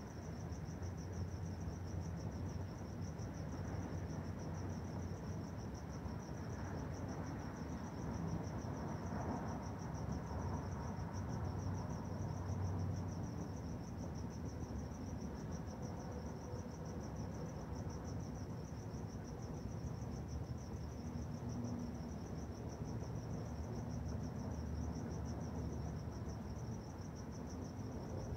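Crickets chirping in a steady, fast-pulsing trill, over low background noise.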